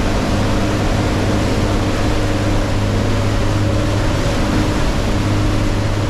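Tour boat's engine running steadily with a low hum, under an even rushing noise of wind and water.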